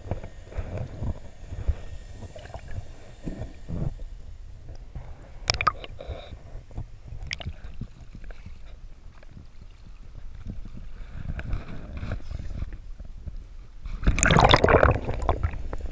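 Water sloshing and gurgling around the camera as a freediver swims up and breaks the surface, with a few sharp clicks midway and a loud burst of splashing about fourteen seconds in.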